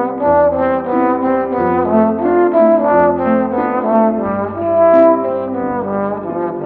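Trombone playing a quick melody of short notes that change a few times a second.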